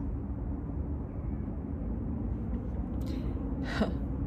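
Steady low rumble of outdoor city background, with a faint steady hum in it. A brief breathy noise near the end.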